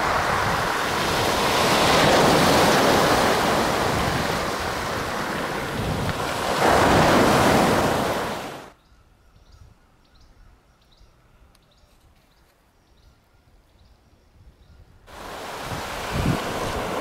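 Small waves washing onto a pebbly sandy beach, mixed with wind, swelling louder about seven seconds in. About halfway through the sound cuts off abruptly to near silence with a few faint ticks. The surf returns suddenly near the end.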